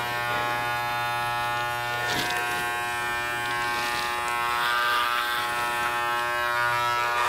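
Corded electric hair clippers running with a steady buzz while they are worked through a mannequin head's long hair.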